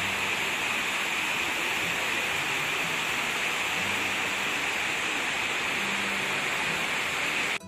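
Water cascading continuously down the walls of a 9/11 Memorial reflecting pool into the basin: a steady, even rush of falling water that cuts off abruptly at the very end.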